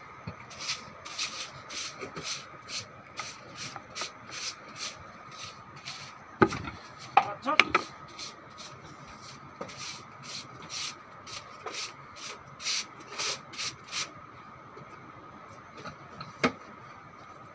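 Broom sweeping dung and straw across a wet concrete pig-pen floor, short scraping strokes about two a second, with a few louder squeaky scrapes around seven seconds in and a single knock near the end.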